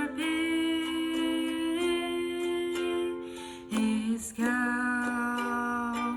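Ukulele accompanying a voice that holds two long notes of a hymn melody, with a short break between them a little under four seconds in.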